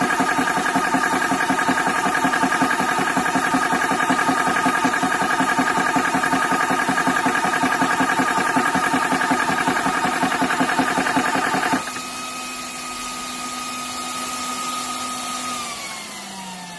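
Small portable PCP air compressor running, pumping air through a fill probe into an air rifle's air tube with a steady pulsing drone. About twelve seconds in the pumping stops abruptly, leaving a quieter steady hum that falls in pitch near the end as the motor winds down.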